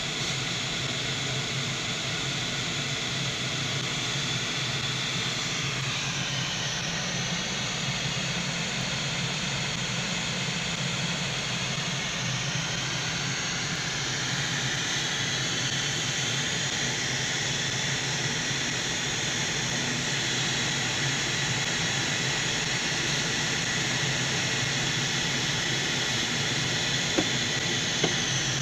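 Steady rush of air over the canopy of a Duo Discus two-seat glider in fast cruise, about 110–115 mph, heard from inside the cockpit, with a low hum under it and two light knocks near the end.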